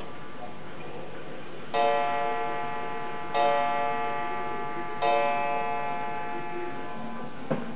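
Gustav Becker pendulum wall clock striking three times, evenly spaced about a second and a half apart, each stroke ringing out and slowly fading. A short sharp knock near the end.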